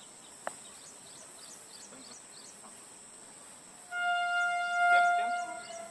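A horn sounds one steady, unwavering note for about two seconds, starting about four seconds in. Under it runs a constant high drone of insects.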